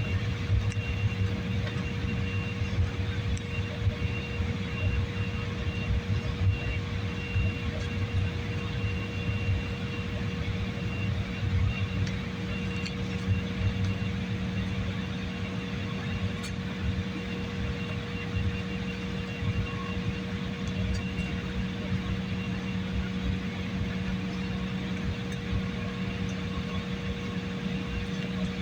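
Passenger aircraft cabin noise in flight: a steady engine drone and rushing air with a constant low hum.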